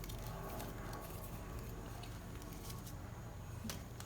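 Faint rustling and small clicks of hands working string around an orchid on a cork mount, with a few sharper ticks near the end, over a steady low hum.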